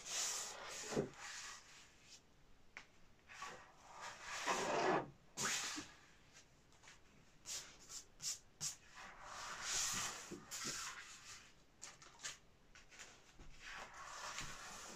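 Large sheets of printmaking paper sliding against each other and rustling as they are lifted and turned over one by one: several separate swishes with a few light taps between them.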